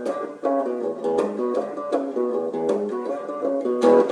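Music: an acoustic string instrument strummed and picked through a chord intro, with a strum stroke roughly every half second to second.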